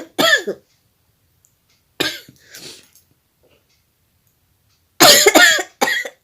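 A person sneezing repeatedly, set off by a chili-pepper stem tickling the inside of the nose: the end of one sneeze at the start, another about two seconds in, and a louder quick run of sneezes about five seconds in.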